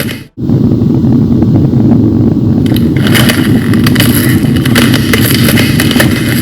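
Loud, continuous rumbling roar with a crackling hiss over it, cutting out for a moment just after the start.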